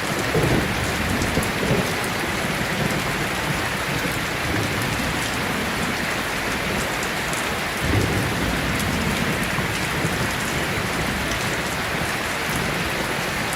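Steady rain falling in a continuous, even hiss, with low rumbles swelling up near the start and again about eight seconds in.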